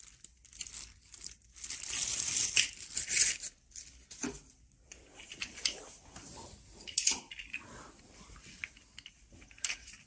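A thin plastic bag crinkling and rustling as caster wheels are pulled out of it, loudest about two seconds in. A few sharp clicks follow as the hard plastic wheels knock together.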